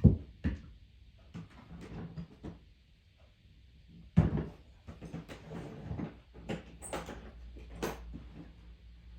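Knocks and clicks of metal impact sockets and their storage case being handled. They come as separate knocks with short pauses, and the loudest is about four seconds in.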